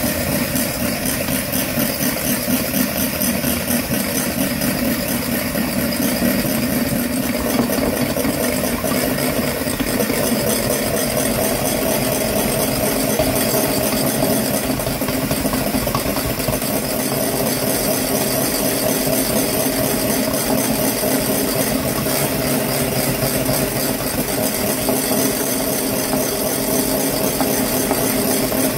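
Electric hand mixer running steadily, its twin beaters whisking egg whites in a ceramic mixing bowl, with a light rattle. The beaters move around the bowl as the whites are beaten toward stiff peaks for meringue, and the motor's pitch rises slightly about eight seconds in.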